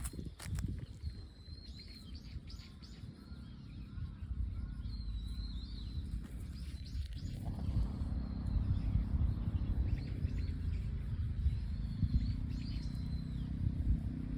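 Small birds chirping on and off over a steady low rumble that grows louder about halfway through.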